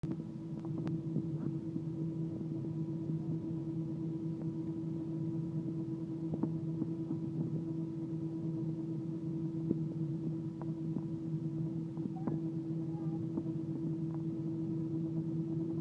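Steady low hum of an Airbus A320 heard from inside the cabin, its engines at idle as it taxis slowly, with a few faint clicks scattered through it.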